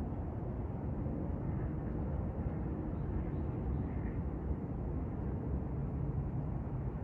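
Steady low rushing outdoor background noise, even throughout with no distinct events.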